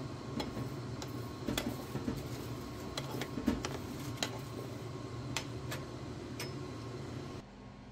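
Whole pickle spices dry-roasting on a tawa (flat griddle), with scattered sharp ticks and clicks over a steady low hum. The hum drops away near the end.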